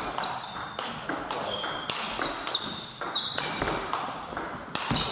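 Table tennis rally: the ball clicking off the rackets and the table in quick alternation, a few hits a second, each with a short, high ping.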